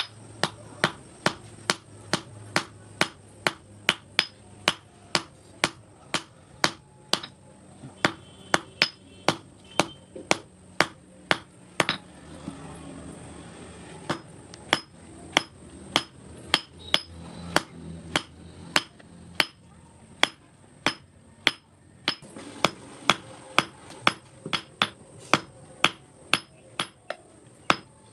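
Blacksmith's hammer striking steel on an anvil while forging an S hook: steady blows about two to three a second, each with a bright ring, pausing twice for a couple of seconds.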